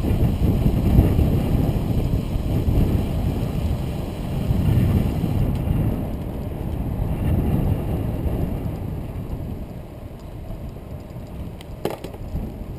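Wind buffeting the microphone of a camera on a moving recumbent trike: a low rumbling rush that swells and eases every couple of seconds, dropping off somewhat near the end, with one brief click shortly before the end.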